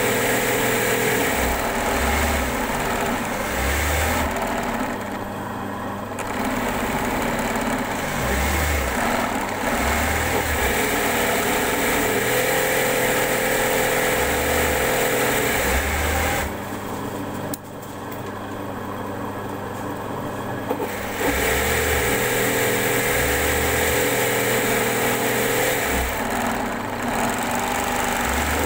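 Electric sewing machine running at speed for free-motion embroidery, the needle stitching through fabric in a hoop. It slows or stops briefly about five seconds in and again for several seconds in the middle, then runs on.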